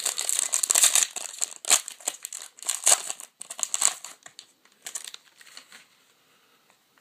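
Trading-card pack wrapper crinkling and tearing as a pack is opened and its cards handled. The crinkling is dense for the first four seconds, then thins to a few scattered rustles.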